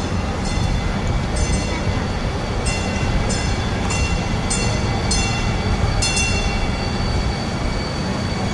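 Santa Clara VTA light rail train rolling into a street-level station with a steady low rumble, its warning bell ringing in a string of about nine rings, mostly about half a second apart. Near the end the rings stop and a steady high whine is left over the rumble.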